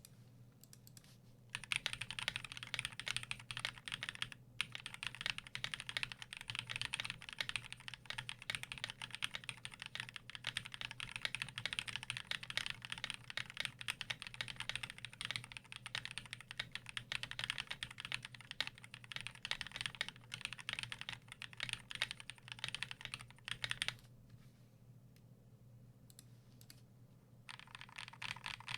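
Fast continuous typing on a custom mechanical keyboard with lubed Akko Rose switches, an aluminium plate and PBT pudding keycaps: dense keystroke clicks. The typing starts about a second and a half in, pauses briefly at about four seconds, stops at about 24 seconds and starts again near the end.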